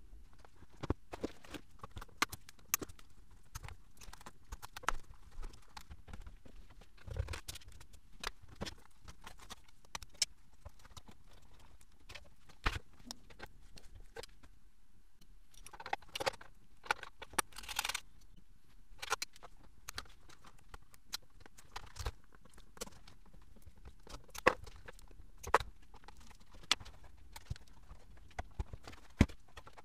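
Scattered clicks and knocks of hand tools, screws and aluminium panels being handled while an electronics chassis is dismantled by hand. A denser run of louder rattling comes about halfway through.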